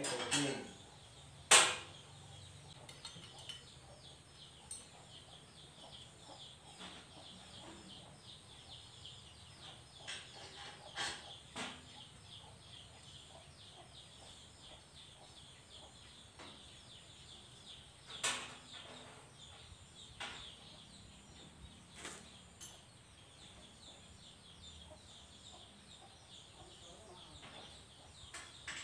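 Hand tools clinking and tapping on the steel frame of a home-built mini jeep during assembly: scattered sharp knocks several seconds apart, the loudest about a second and a half in.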